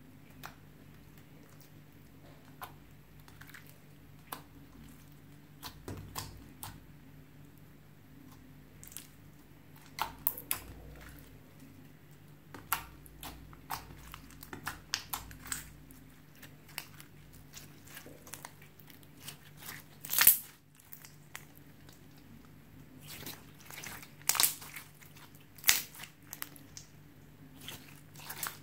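Slime being squished and worked by hand, making irregular sticky clicks, pops and crackles, with the loudest pop about twenty seconds in.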